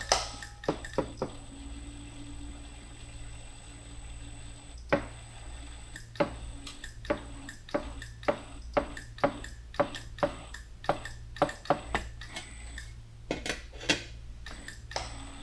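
Bead roller running a sheet-metal panel through its dies to bend the flange: a steady low motor hum under a regular run of light metallic clicks, about three a second, from around six seconds in, with a brief cluster of clicks near the end.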